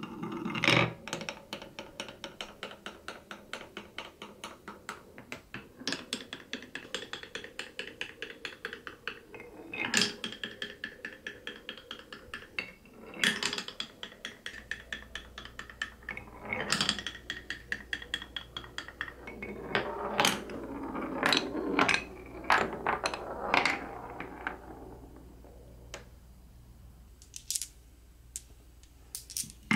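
A glass marble rolling through a wooden marble run, clattering in fast, even runs of clicks as it spirals over a ridged bowl and rolls along wave-grooved wooden tracks, with louder knocks as it drops from one piece onto the next. It goes quiet except for a few ticks near the end.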